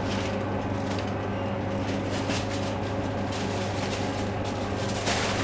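Steady low machine hum, with a few brief clicks or rustles; the loudest comes about five seconds in.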